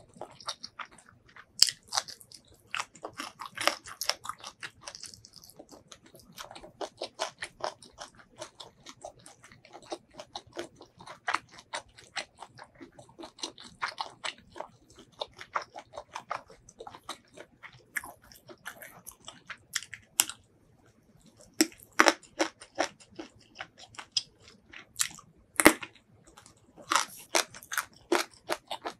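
Close-miked chewing of a mouthful of spiced shrimp curry and rice: rapid wet mouth clicks and smacks, pausing briefly about two-thirds of the way through, with a few louder, sharper bites later on.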